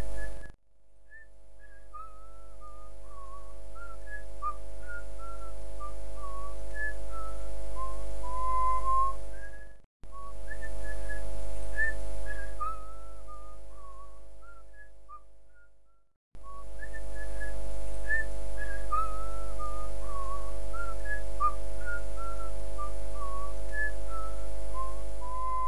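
A person whistling a short wandering tune over a steady low drone. The passage is heard three times, fading out and starting again twice.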